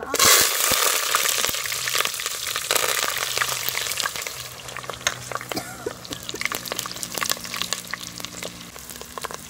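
Chopped onion and curry leaves dropped into hot oil in a clay pot: a sudden loud sizzle, then steady frying full of sharp crackles that slowly dies down.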